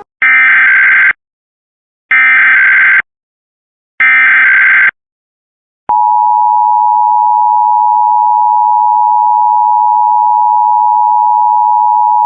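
Emergency Alert System test tones: three loud, roughly one-second bursts of screechy data tones, the SAME header repeated three times. About six seconds in, the steady two-tone EAS attention signal begins.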